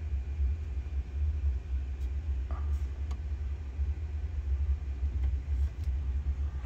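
Steady low rumble with a few faint clicks while the tonearm of a TEAC full-automatic turntable is handled and the stylus is brought down onto the record, heard through the receiver's phono input before any music plays.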